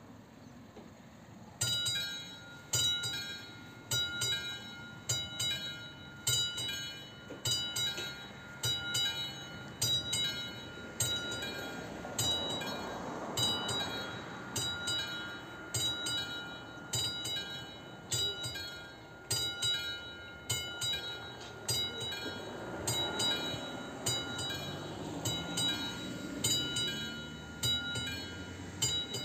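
Electronic warning bell of an AŽD 71 level-crossing signal starting up about two seconds in and striking steadily about once a second, each ding ringing on. It warns that a train is approaching. A low rumble swells up twice underneath.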